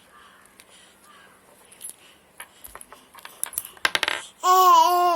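Scattered faint clicks and taps, then a short noisy burst about four seconds in. Near the end comes a loud high voice holding one long, slightly wavering call.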